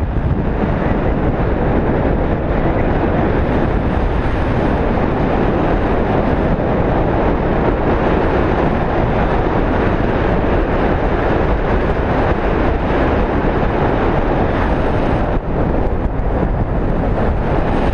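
Steady, loud wind buffeting the microphone as a continuous rushing noise, with a brief lull about fifteen seconds in.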